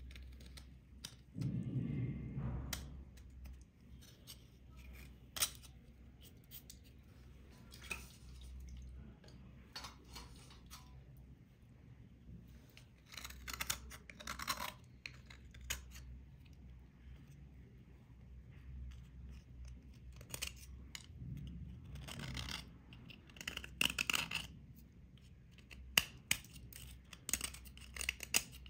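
Knife blades scraping and picking at a soaked, crusted grey layer on a bottle-shaped piece, in irregular short scratches with a few longer scraping runs, and a dull handling bump near the start.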